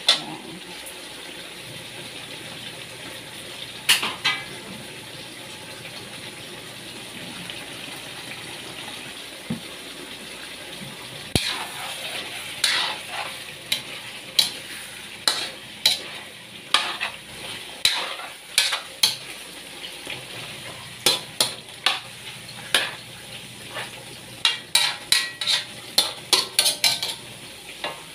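Chicken pieces sizzling in a wok while a metal spatula stirs them, clanking and scraping against the pan. The spatula strikes come only now and then at first, then quick and frequent from about eleven seconds in.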